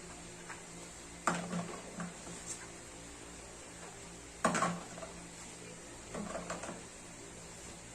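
Feeding bottles and cups knocking and clattering as they are handled and scrubbed with a sponge. There are a few sharp knocks, the loudest about a second in and again at about four and a half seconds, with a quicker run of small clatters near the end.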